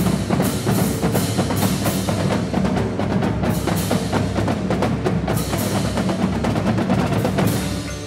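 Background music: a percussion-heavy section with a fast, dense beat over steady low notes, easing near the end.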